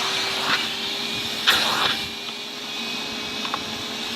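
Henry canister vacuum cleaner running steadily with a humming tone and a rush of suction while it cleans dust off the Hoover, with a couple of light knocks of the nozzle against the plastic.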